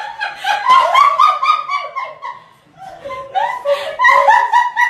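High-pitched laughter: rapid, breathy ha-ha bursts several a second, dropping away briefly past the middle and then picking up again.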